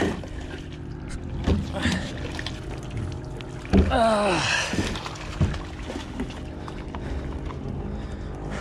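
Magnet-fishing rope being hauled up hand over hand onto a wooden pier with a bicycle caught on the magnet, giving a few knocks and bumps. About four seconds in there is a strained vocal sound falling in pitch, with a steady low motor hum underneath.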